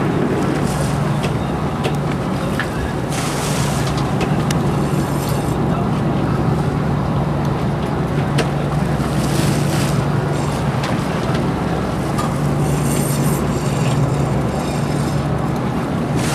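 Boat engine running steadily with a low hum, under the hiss of wind and choppy water, with a few brief gusts.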